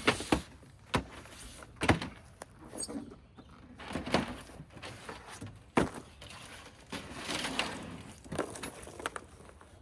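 Scattered knocks and thumps with rustling as a portable upright 12/24-volt fridge is lifted out of its packaging and set down on a table.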